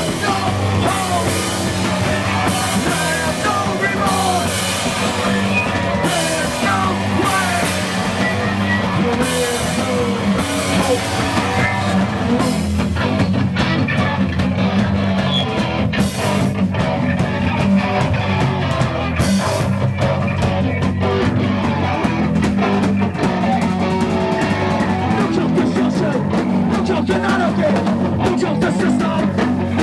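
A rock band playing live, with a drum kit and guitar.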